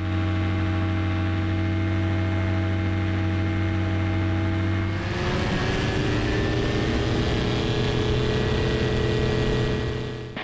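Ultralight aircraft's rebuilt Rotax engine running in flight, a steady drone. About halfway through the note changes abruptly, then rises slowly.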